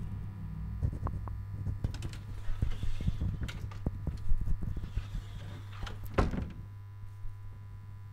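Irregular clicks and knocks of a wooden door being handled, over a steady low hum, with one louder knock just after six seconds; the knocking stops about a second later, leaving only the hum.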